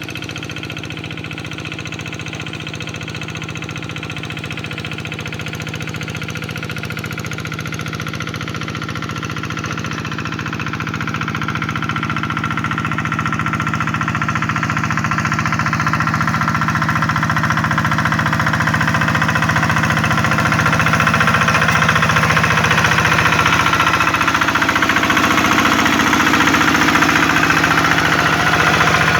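Hand tractor's single-cylinder diesel engine running steadily under load with a knocking beat, growing gradually louder through the second half.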